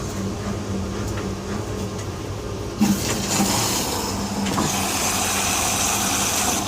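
Whirlpool washing machine running its service test: a steady electric hum, then about three seconds in a sudden loud rush of water through the machine that carries on steadily.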